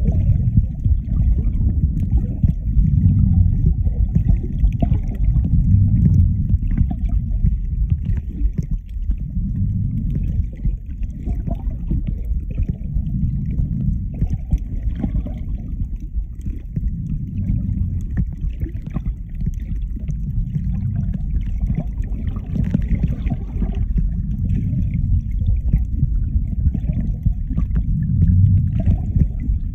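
Muffled underwater noise picked up by a phone's microphone submerged in shallow sea water: a low rumble of moving water that swells and eases every few seconds.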